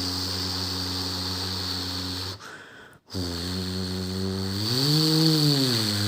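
A person's low voice imitating a Hino RK8 bus's diesel engine and exhaust: a steady drone, broken by a short breath about two and a half seconds in. It then resumes and near the end slides up and down in pitch like an engine being revved.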